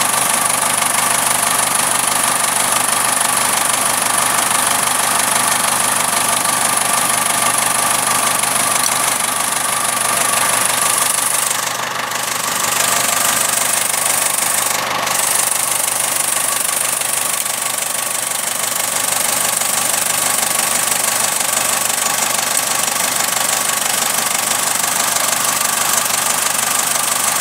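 Diesel engine with a Bosch VE rotary injection pump running steadily with the usual diesel knock, level dipping briefly about halfway through.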